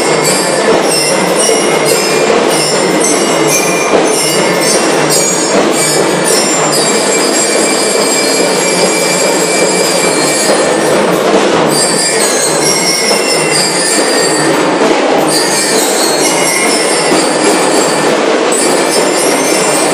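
A school drum and lyre corps playing loudly: bell lyres ring out high metallic notes over steady drumming.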